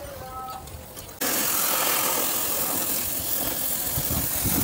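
Oxy-fuel cutting torch hissing steadily as it cuts steel plate. The hiss starts suddenly about a second in, over a quieter background with a thin held tone.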